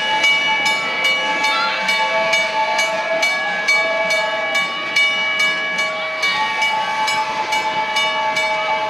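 Passenger cars of a train rolling past, their wheels clicking over the rail joints about three times a second, with a steady high-pitched squeal over the top.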